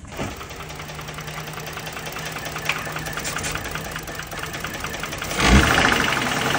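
Ford Edge's 3.5-litre Cyclone V6 running with a rapid, even knock, louder from about five and a half seconds in. The knock is a sign of lower-end damage, which the owners put down to a main or rod bearing shedding metal into the oil.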